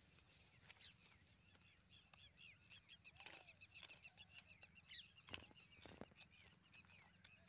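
Near silence, with faint scattered high chirps throughout and a couple of soft taps about five to six seconds in.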